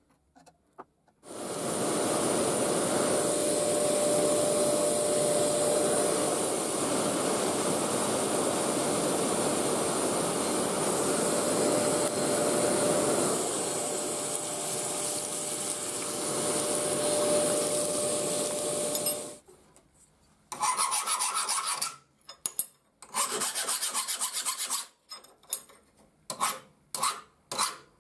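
Forced-air charcoal forge: a loud steady rushing of air through the fire with a faint steady hum, starting about a second in and cutting off suddenly about two-thirds of the way through. Then a hand file scrapes across steel in a run of separate strokes.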